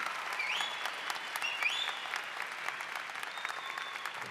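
Large crowd applauding and cheering in a big hall, with dense clapping and two short rising calls from the crowd early in the applause.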